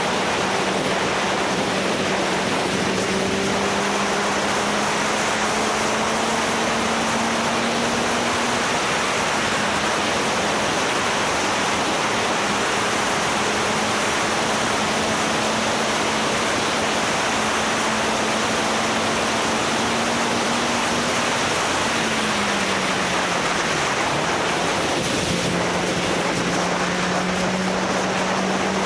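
Riding motorcycle: wind rushing over the microphone fills the sound, with the engine's hum underneath, its pitch creeping slowly upward, dropping briefly about two-thirds of the way in and falling again near the end.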